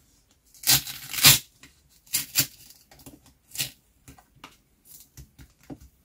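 Glued plastic protective film being peeled off a calculator's LCD glass: a series of short crackling, tearing rasps as the adhesive lets go, the loudest two about a second in, then a few more and fainter ones later.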